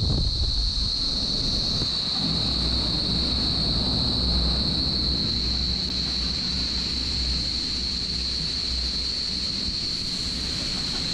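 Vertical wind tunnel for indoor skydiving running: the steady rush of the fan-driven air column with a deep low rumble, wind buffeting the microphone, and a steady high-pitched whine over it.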